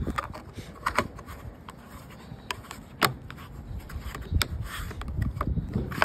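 A handful of sharp plastic clicks and taps over a low rumble as a black plastic trim cover is handled and pressed into place at a car's trunk opening. The sharpest click comes about three seconds in.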